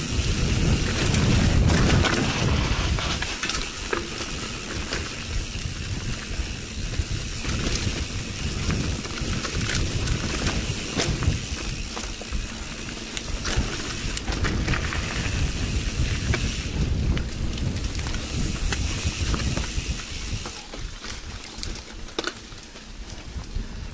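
Mountain bike riding down a dirt singletrack, heard from on the bike: rolling tyre noise with a busy rattle of clicks and knocks as the bike goes over the bumps, under a low rumble that is heaviest in the first few seconds and eases off near the end.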